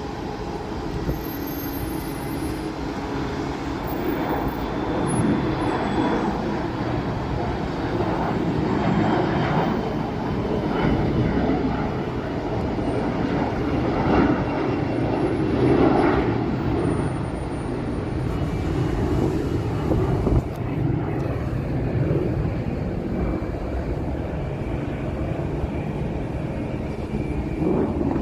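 Jet airliner engines rumbling as the plane goes by, growing louder toward the middle and easing off again, with a thin high whine over the rumble.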